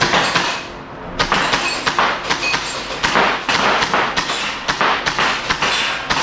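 Airsoft rifle firing single shots in quick succession, about two or three sharp cracks a second, with a short pause about a second in.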